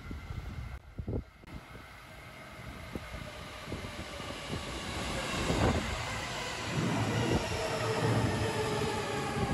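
Train running on the Negishi Line, growing steadily louder, with a rumble of wheels, a whine of several tones above it and a few sharp knocks.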